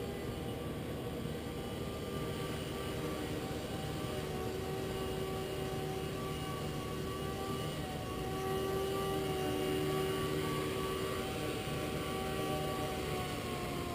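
Blade 130X micro electric RC helicopter in flight: its motors and rotors make a steady whine that wavers a little in pitch and falls away right at the end.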